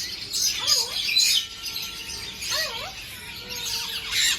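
Many caged birds chirping and tweeting together, a dense high twittering with several wavering whistled calls below it.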